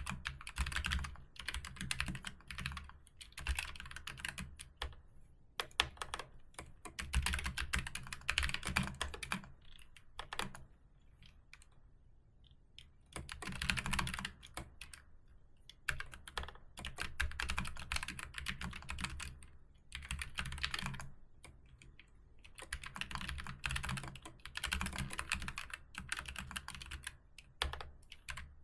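Typing on a keyboard: runs of fast keystrokes, clicks with a low thud under each, broken by short pauses.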